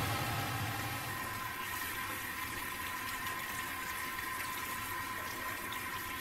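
Cigarette-tar liquid boiling hard in an aluminium saucepan over a gas burner: steady bubbling with small pops as the last water boils off and thick tar is left.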